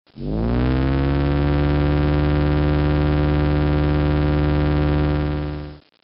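Simulated sound of a Boeing 767 integrated drive generator (IDG) spinning up to operating speed: a low, buzzy hum that rises in pitch over the first second, then holds steady before cutting off near the end.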